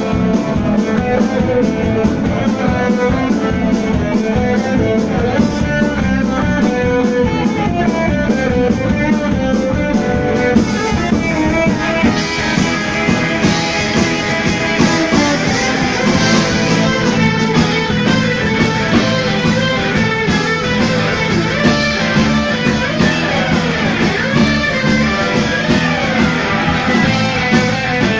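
Live punk-rock band playing loud: electric guitar over a drum kit, with trombone and accordion in the band. The sound gets busier and brighter about twelve seconds in.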